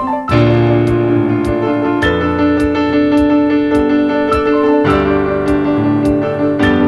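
Instrumental keyboard music: held piano chords that change every couple of seconds over a steady, even beat.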